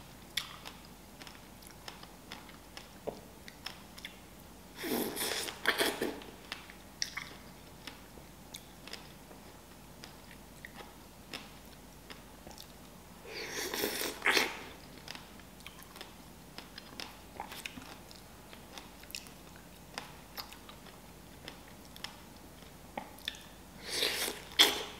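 Biting into and chewing large, juicy fresh strawberries: three louder bites, spaced roughly nine seconds apart, with soft chewing and small wet mouth clicks in between.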